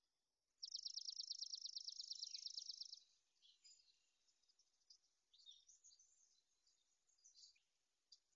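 A small songbird sings one fast, even trill lasting about two and a half seconds, followed by scattered faint chirps from other birds across a marsh.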